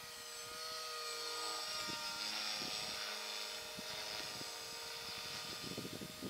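Thunder Tiger Mini Titan E325 V2 electric RC helicopter in flight, its stock brushless motor and rotor blades giving a steady whine with a rotor hiss that grows louder around the middle and eases off again.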